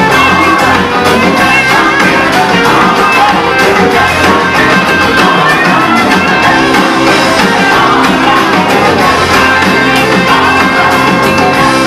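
Live rock band with saxophones and a large chorus of singers performing, many voices singing together over guitar and drums.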